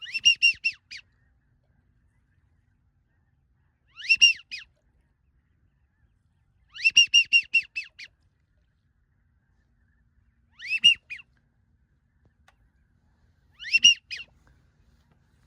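Waterfowl calling: five short bursts of rapid, high, yelping notes, each about a second long and a few seconds apart.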